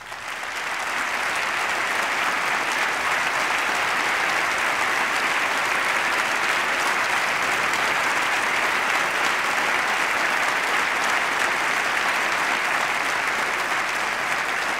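Large audience applauding: dense, sustained clapping that builds up over about the first second and then holds steady.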